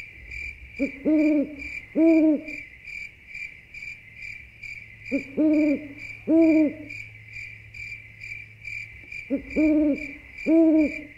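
Night ambience: an owl hooting in pairs, two hoots about a second apart, repeated three times, over a steady pulsing chirr of crickets.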